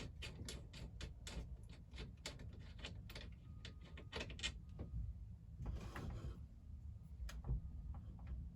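Faint, irregular light clicks and small knocks of hand work on a van's steering wheel, a few a second.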